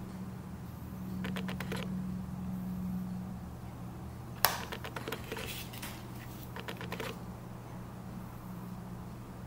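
Light clicks and taps of hard plastic as a clear plastic tea-infuser basket is handled, in three short clusters; the sharpest click comes about four and a half seconds in. A steady low hum runs underneath.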